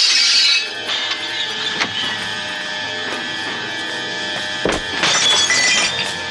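Window glass shattering over music. About five seconds in comes a low thud followed by another crash.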